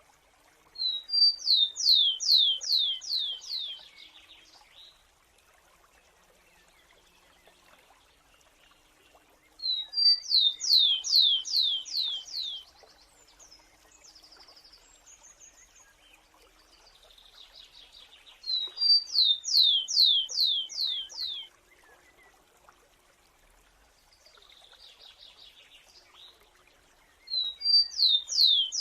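A sparrow singing the same song over and over, about every nine seconds: two short high notes, then a quick run of about six down-slurred whistles. It sings three full songs and starts a fourth near the end, with faint softer calls between the songs.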